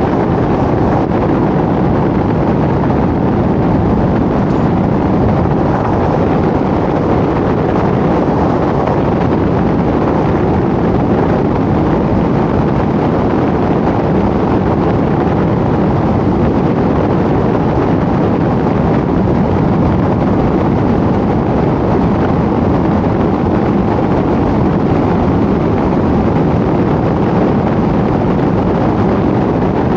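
A car driving along a road, a steady rush of tyre and wind noise.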